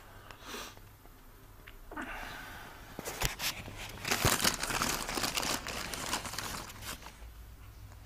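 A clear plastic bag of seeds crinkling and rustling as it is handled, building up about two seconds in and loudest in the middle, with a few light knocks.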